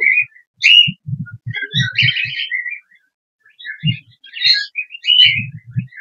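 Caged cockatiels chirping in short, scattered calls, with a few low muffled bumps.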